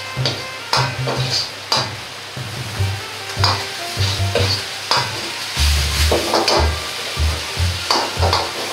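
Metal ladle scraping and knocking against a wok as ground meat, cabbage and egg are stir-fried, with repeated sharp strikes about one a second or faster over a steady sizzle of the food frying.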